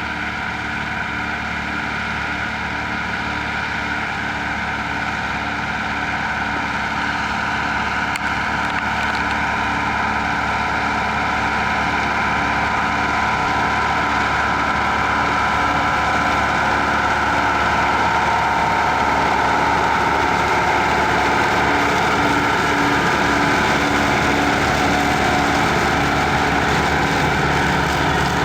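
Mercedes-Benz MB-Trac tractor's diesel engine running steadily while working Grimme potato machinery in the field, gradually getting louder.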